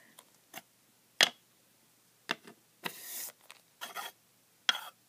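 Small plastic toy pieces being handled and set down, making a scatter of sharp clicks and taps with a short rustle about three seconds in.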